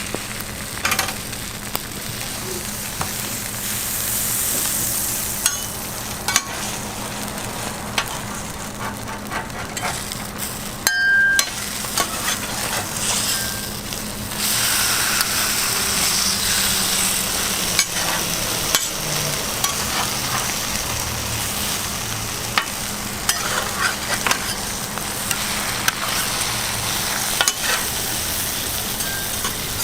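Food sizzling as it fries on a hot griddle, with frequent short clicks of metal utensils stirring and tapping. A steady low hum runs underneath, and there is a brief high-pitched tone about eleven seconds in.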